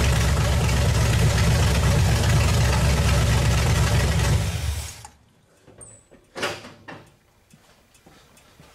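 Small-block Chevy V8 with open headers idling loudly, its ignition timing just set to 12 degrees before top dead center, then shut off about four and a half seconds in. A few faint knocks follow in the quiet.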